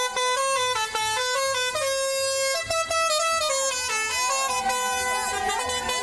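Indian truck's musical pressure horn playing a tune of held notes that step from pitch to pitch, with wavering, swooping tones in the second half.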